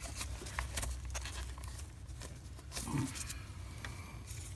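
Handling noise from a phone microphone rubbing against a jacket: a low rumble with scattered small clicks and rustles, and a short low sound about three seconds in.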